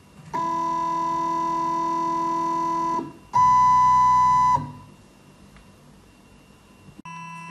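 Shapeoko desktop CNC's Z-axis stepper motor whining in steady tones during Z probing as the drag-knife head moves toward the probe plate. A whine lasts about two and a half seconds, a louder one follows for over a second, and another starts near the end.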